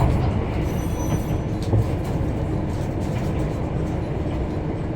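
Interior of a Kyoto Tango Railway diesel railcar running along the line: a steady low rumble of engine and wheels on rail, with a few faint ticks and rattles.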